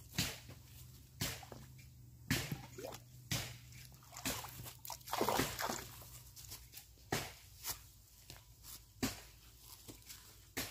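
Water sloshing and dripping as a green bamboo tube is rinsed in a stream and emptied, with sharp clicks and drips about once a second and two longer splashy gurgles in the middle.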